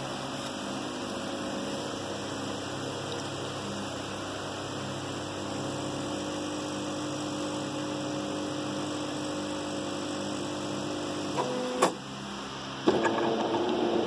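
Faber coffee machine running with a steady hum that stops with a click about eleven seconds in; a second later a louder buzz starts up.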